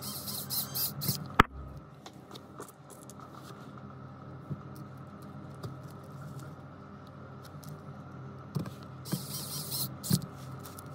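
An electric precision screwdriver whirs in short runs as it drives tiny phone screws, once near the start and again near the end. A single sharp click comes about one and a half seconds in, with light ticks and scrapes of the tool against the phone's metal frame in between.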